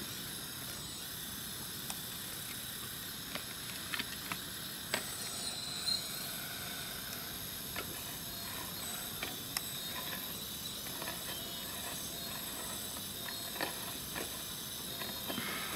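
Hydraulic scale RC excavator working: a steady high-pitched whine and hiss from its electric hydraulic pump and valves, with scattered clicks and knocks of stones and dirt as the bucket dumps and digs.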